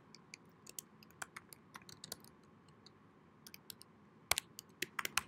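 Typing on a computer keyboard: irregular key clicks in two spells with a pause of about a second between them, and a few louder keystrokes near the end.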